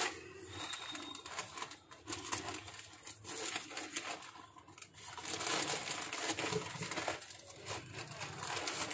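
Plastic courier mailer bag crinkling and rustling as it is handled and torn open by hand.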